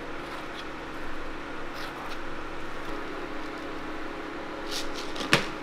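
Steady machine hum of a food stall with a few light clicks of utensils as whipped cream is spread on a waffle and crumbs are shaken from a plastic bottle; a sharp click about five seconds in.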